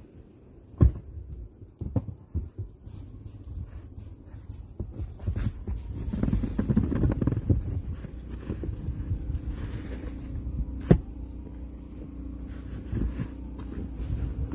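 Snow shovel knocking and scraping through snow, with sharp knocks about a second in and again near the end, over a steady low rumble.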